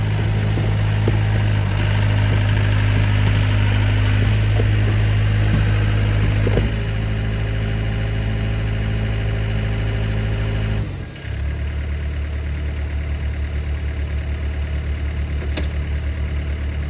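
Diesel engine of a Case CX57C mini excavator running steadily, then dropping to a lower, pulsing idle about eleven seconds in.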